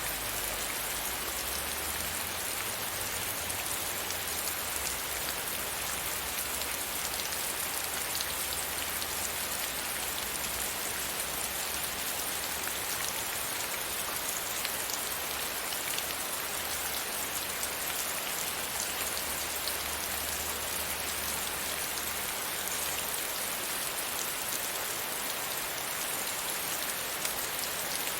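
Steady rain pattering against a window pane: a dense, even hiss of many small drop ticks with a faint low rumble underneath at times.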